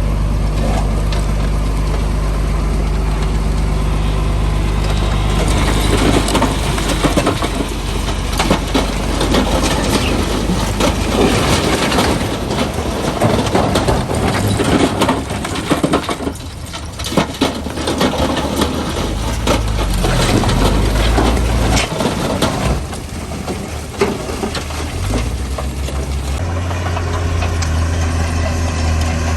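Heavy diesel earthmoving machinery running with a steady low drone, while loose stone clatters and grinds with many sharp knocks. The rock noise builds a few seconds in, eases briefly about halfway, and dies down near the end, when the engine's pitch shifts.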